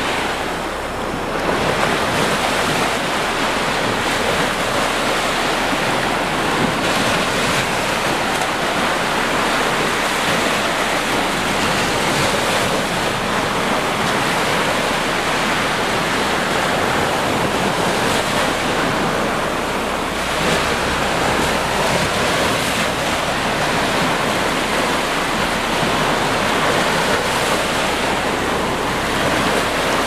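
Ocean surf: small waves breaking and washing up a sandy beach. It is a loud, steady rush of surf that swells and eases only slightly.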